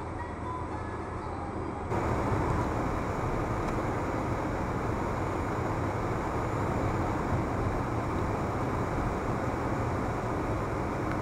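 Steady road and engine noise of a car cruising on a highway, heard from inside the cabin through a windshield-mounted dashcam's microphone; it gets louder about two seconds in.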